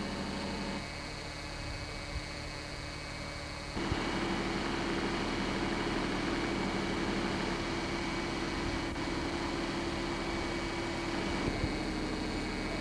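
Steady mechanical hum with hiss. A low steady tone runs through the middle stretch. The background changes abruptly about a second in, again just before four seconds, and shortly before the end.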